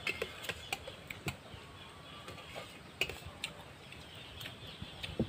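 Spoons clinking and scraping against plates during a meal: irregular light clicks and taps, a few sharper ones about a second in and again near the three-second mark.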